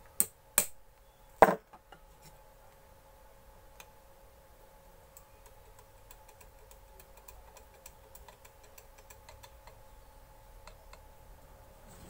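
Parts of a mixer grinder motor being fitted together by hand: three hard knocks in the first second and a half, the third the loudest, as the end bracket is seated on the motor body, then light clicking and ticking as it is handled.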